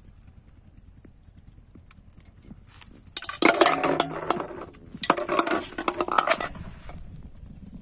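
Empty plastic bottles knocking and clattering against a large aluminium bowl, which rings briefly. Quiet at first, then a clatter about three seconds in and another about five seconds in.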